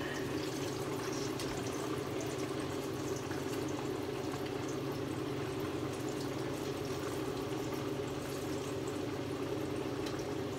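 Range hood blower running with a steady hum, over the sizzle of tilapia fillets frying in hot oil.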